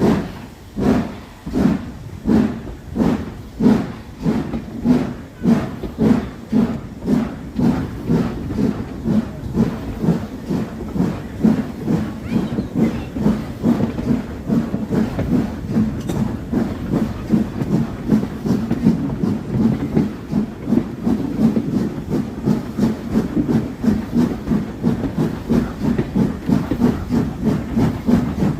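Steam exhaust beats of BR Ivatt Class 2MT 2-6-0 steam locomotive 46447 working a train, with steam hiss and wheels on rail. The beats start at about two or three a second and quicken to about four a second as the engine picks up speed.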